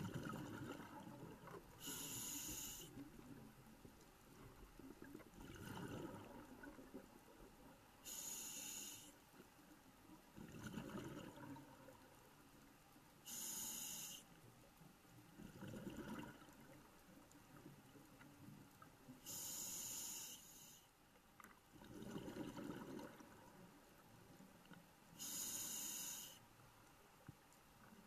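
Scuba diver breathing through a regulator, heard from inside the camera's underwater housing: bubbling exhalations alternating with short hissing inhalations, about one breath every five to six seconds.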